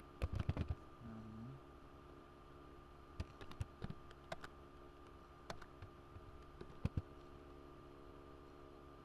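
Computer keyboard being typed on in three short bursts of keystroke clicks, with pauses between them.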